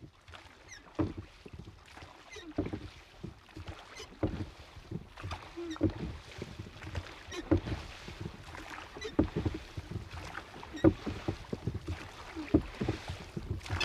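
Irregular knocking and short creaks of wooden doors and their hinges, a few knocks every second, getting busier towards the end.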